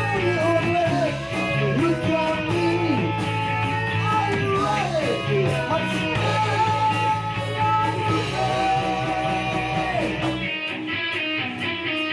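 Rock music with distorted electric guitars, drums and bass; a bending lead line, guitar or voice, runs over the band, and the bass drops out about ten and a half seconds in.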